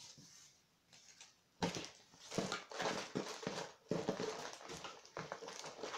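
Plastic bags and paper being handled and crinkled: quiet at first, then a run of irregular rustles from about a second and a half in.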